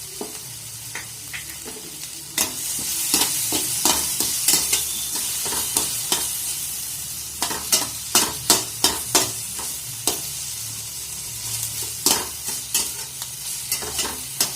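Onion-tomato masala sizzling in oil in a kadai, getting louder about two seconds in as chopped capsicum goes in. A spatula scrapes and knocks against the pan in quick strokes as it is stirred.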